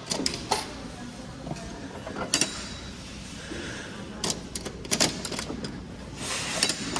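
Scattered clicks and knocks of a coin-operated toy capsule vending machine's mechanism being worked, a few sharp ones close together about two seconds in, again around four to five seconds, and near the end.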